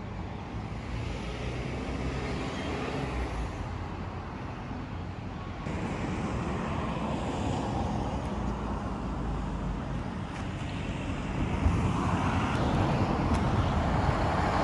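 Road traffic noise: a steady hum of passing cars and trucks, with no voices. The background shifts abruptly about six seconds in and grows louder over the last few seconds.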